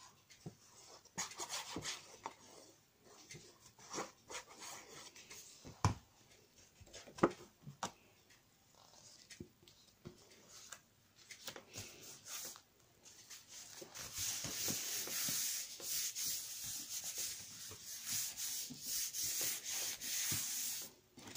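Paper being handled with light taps and rustles, then rubbed in steady strokes for the last several seconds as a paper layer is glued and pressed flat onto a card.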